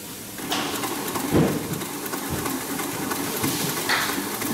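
Hightex 204-102MD twin-needle industrial sewing machine running, stitching leather with thick thread in a steady rapid rattle that starts about half a second in.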